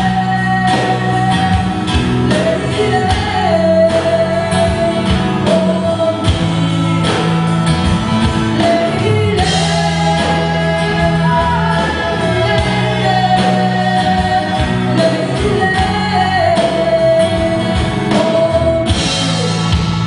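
Live rock band playing: a woman sings the lead over electric guitar, bass guitar, keyboard and a drum kit, with cymbal crashes about halfway through and near the end.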